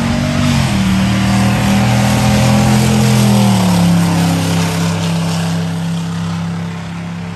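Single-cab pickup truck's engine at full throttle down a drag strip. Its pitch steps down about half a second in, climbs again, then drops as the truck goes by near four seconds, and the sound fades as it pulls away.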